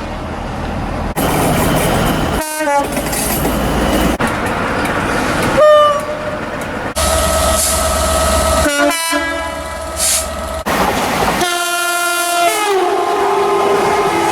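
Train horns: a quick run of separate horn blasts cut one after another, each a chord of steady tones over the rumble and rail noise of the train. Near the end a longer chord horn drops in pitch as the train goes by.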